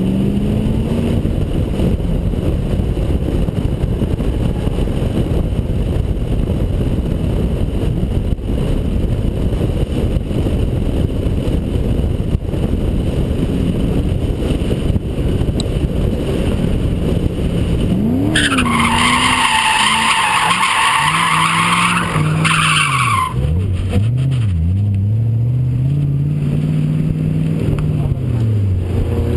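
Lexus SC400's V8 engine running hard under drift driving, heard from inside the cabin with heavy road and wind noise. About eighteen seconds in, the tyres squeal loudly and waveringly for about five seconds as the car slides, then the engine note rises and falls several times as the driver works the throttle.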